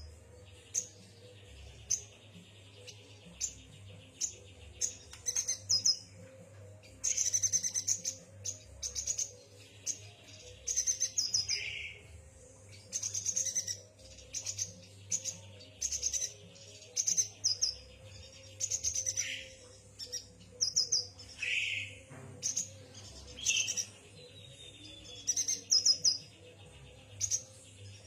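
Yuhina chirping: short bursts of quick, high chirps repeated every second or so, mixed with some lower, buzzier trilled notes.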